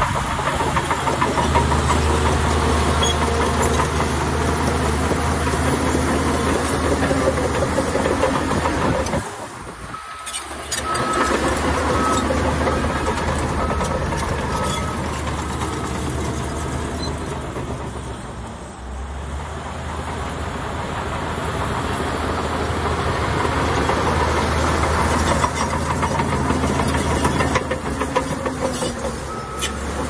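Heavy earthmoving machinery at work: a diesel engine runs steadily, easing off sharply about a third of the way in and more gently just past halfway. A reversing alarm beeps about once a second for a few seconds after the first dip, and again near the end.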